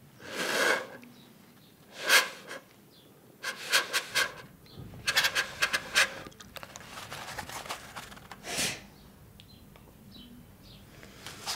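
Puffs of breath blown through a rolled-up paper tube like a makeshift horn: a longer breathy blast, then shorter blasts and quick flutters, in several separate groups.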